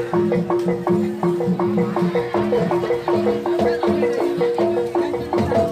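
Jaranan accompaniment music from a gamelan-style ensemble: pitched metal percussion struck in a fast, even repeating pattern, about five notes a second, over a steady held tone.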